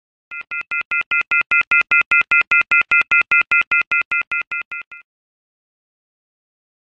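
Rapid electronic beeping, about five short beeps a second, each a steady chord of three tones. The beeps swell in loudness, then fade and stop about five seconds in.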